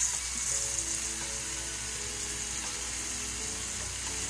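Tempura-battered shrimp deep-frying in hot oil, sizzling steadily, with a background music melody playing under it.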